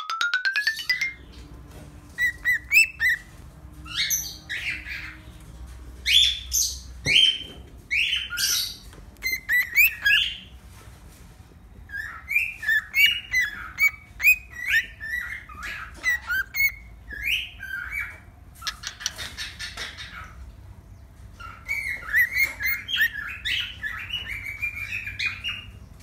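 Cockatiel calling: runs of short chirps and squawks, several a second, in bursts separated by pauses of a second or two.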